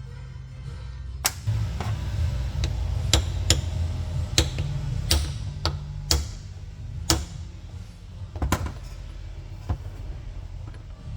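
Sharp metal-on-metal taps and knocks, like hammer blows on transfer-case parts, about a dozen at uneven spacing with a short ring after each, over steady background music.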